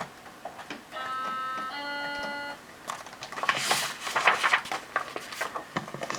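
Recorded cuckoo-clock call: two steady notes, the second lower, about a second in. This is the read-along audio's cue to turn the page. It is followed by paper rustling as the book's page is turned.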